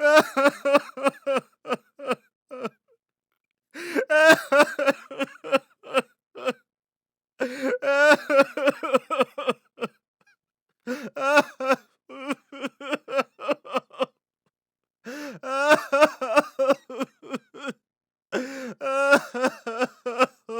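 A man crying: bouts of sobbing, wavering vocal cries made of many short catches of the voice, separated by brief pauses of about a second.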